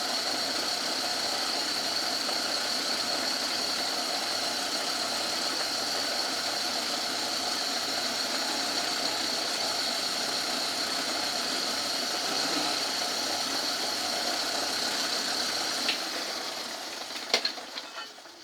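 Old Myford lathe running steadily with a high whine. Near the end it is switched off and runs down, with a few sharp clicks.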